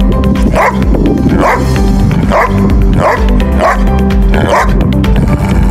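Giant schnauzer barking repeatedly, about seven barks roughly a second apart, over background music.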